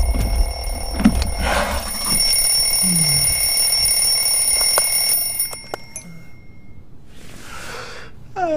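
Alarm clock ringing steadily, cutting off about five and a half seconds in. Near the end a person begins a long yawn that falls in pitch.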